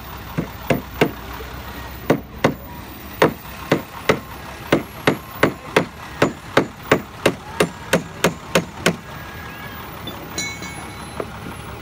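A run of about twenty sharp knocks, like hammer blows, coming two to three a second and stopping about nine seconds in.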